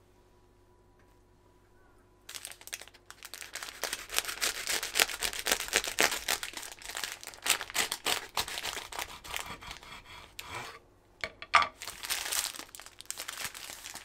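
Plastic wrap and paper crinkling and rustling around a sandwich while a knife saws through the wrapped sandwich. It starts about two seconds in, breaks off briefly, then resumes with a sharp click.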